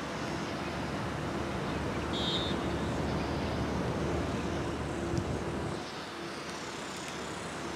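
Steady low outdoor rumble, like distant traffic or an aircraft overhead. About two seconds in comes one short, high referee's whistle blast.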